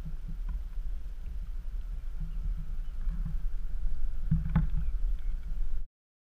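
Small waves lapping and sloshing against a concrete pier wall, a low, uneven rumble of water, with one sharper splash about four and a half seconds in. The sound cuts off suddenly near the end.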